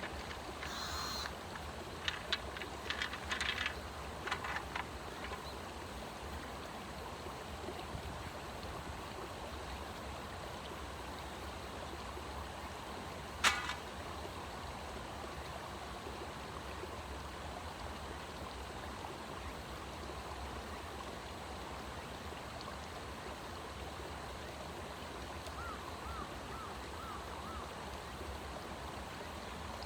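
Steady rush of a stream running through the countryside. A few short high chirps and clicks come in the first few seconds, a single sharp click about 13 seconds in, and a quick run of four short chirps near the end.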